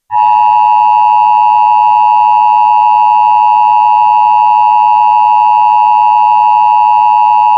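Emergency Alert System two-tone attention signal: a loud, steady dual tone just under 1 kHz that starts abruptly right at the beginning and holds without change. It warns that an emergency alert message is about to follow.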